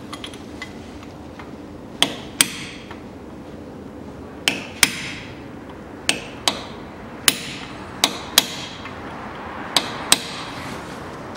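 Hammer striking a screwdriver held against the front drive-axle nut, staking the nut to lock it. About eleven sharp metal strikes, mostly in pairs, each with a short ring.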